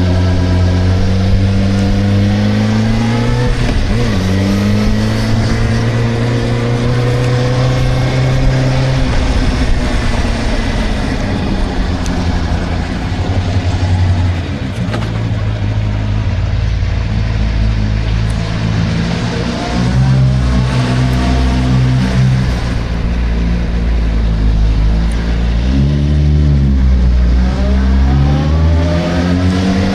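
Suzuki GSR 600 motorcycle's inline-four engine running under way, its pitch climbing, dropping back and climbing again several times as it accelerates and slows. There is a long fall in revs around the middle and a rising pull near the end.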